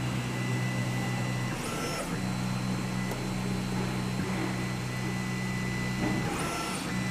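Wanhao i3 Plus 3D printer running: a steady low mechanical hum with a faint high tone. The hum shifts twice, about one and a half seconds in and near the end, each time with a brief high whir as the printer's motion changes.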